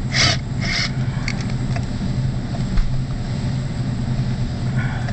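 Steady low mechanical hum of the walk-in cooler's refrigeration equipment, with two brief hissy scrapes in the first second and a couple of faint clicks.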